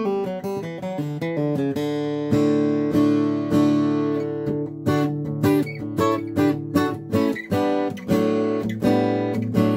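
Martin D-35 steel-string acoustic guitar being played after a fret level and setup: quick picked notes, then a chord left ringing, then strummed chords from about halfway.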